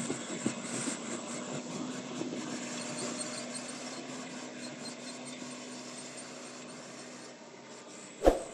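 Farm machinery engine running steadily with a steady hum, slowly fading, then one sharp knock near the end.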